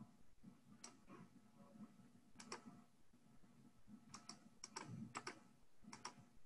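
Faint clicks of a computer keyboard, scattered singly and in quick pairs, over near-silent room tone.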